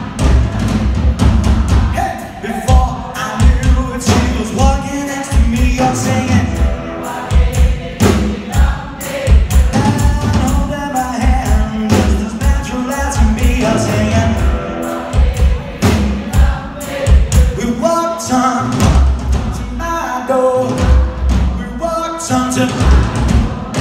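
Live rock and roll band playing with a male lead singer: drum kit, electric guitars, bass and keyboard under the singing, with a steady beat.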